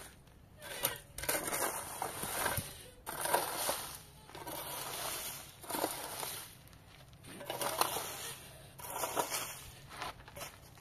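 A flat hand-held piece scraped over dry, gravelly dirt in repeated gritty strokes, roughly one a second, with short pauses between.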